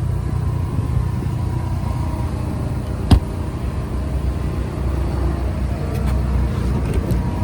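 Steady low rumble, with a single sharp click or knock about three seconds in.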